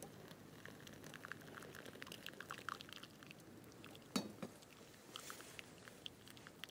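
Hot water poured onto ground coffee in a mesh pour-over dripper. The wet grounds crackle and fizz faintly as they bloom, and a single sharp click comes about four seconds in.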